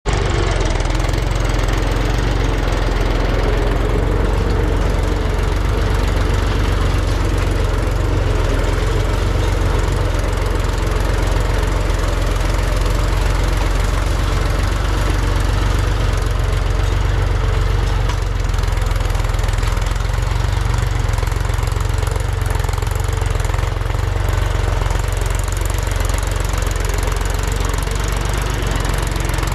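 Diesel engine of heavy farm or earth-moving machinery running steadily at an even speed, with a deep, unbroken rumble.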